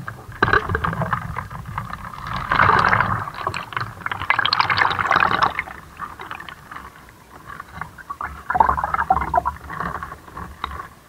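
Water being dumped out of a plastic shipping bag into a styrofoam container, splashing and sloshing in two spells with a quieter moment between.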